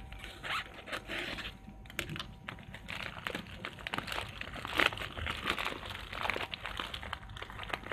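Clear plastic courier bag crinkling and tearing as hands pull it open, an irregular run of crackles and rustles.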